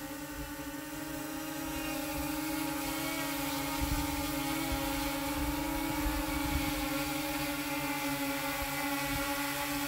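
DJI Mini 2 quadcopter hovering on Master Airscrew Stealth propellers: the steady whirring buzz of its four rotors, getting a little louder over the first two seconds as it comes closer.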